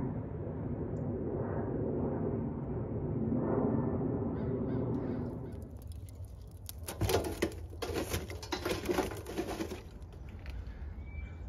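Geese honking for the first five seconds or so. About six and a half seconds in they give way to a charcoal fire crackling and popping with many sharp snaps for about three seconds.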